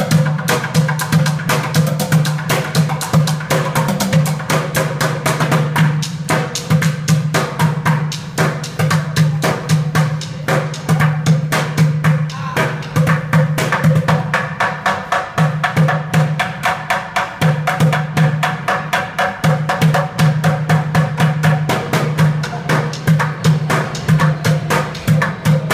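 Street bucket drumming: upturned plastic buckets and cans beaten in a fast, continuous rhythm of dense hits, with a strong low thud from the bucket bottoms.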